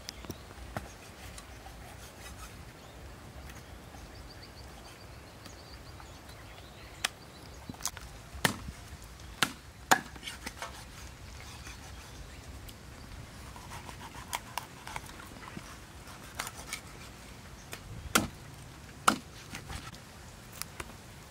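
Cleaver chopping a large fish into thick steaks on a round wooden chopping block. The sharp thwacks of the blade come irregularly, a cluster of them about seven to ten seconds in and a few more later, with quiet pauses between.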